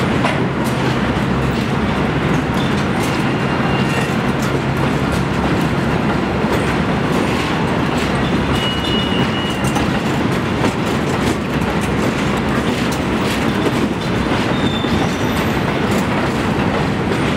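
Work train of flatcars rolling past on elevated track: a steady rumble of wheels on rail with many clicks over the rail joints. A few brief faint wheel squeals come through, about three seconds apart.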